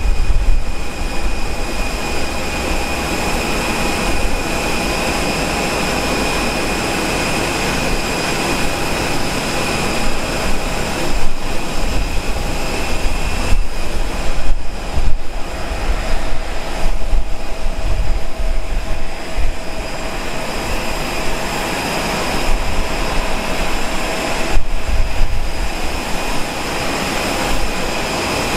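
Airbus A350-900's Rolls-Royce Trent XWB-84 turbofans at idle thrust while taxiing: a steady high whine with several held tones over an uneven low rumble.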